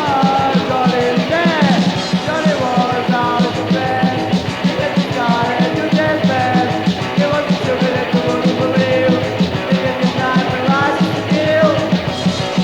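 Hardcore punk song playing: a loud, dense band mix over a fast, even beat, with a pitched lead line bending up and down on top.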